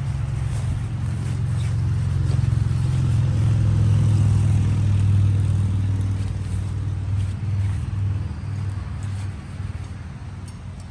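Low engine rumble that builds over the first few seconds and fades away over the last few.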